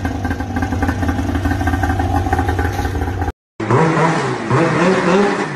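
Snowmobile engine running at a steady pitch, then, after a sudden cut, a snowmobile engine revving up and down repeatedly.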